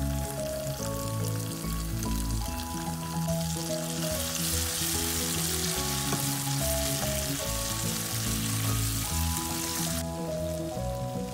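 Sliced onions and chili sauce sizzling as they sauté in oil in a non-stick wok, over background music. The sizzle grows louder about four seconds in and cuts off suddenly near the end.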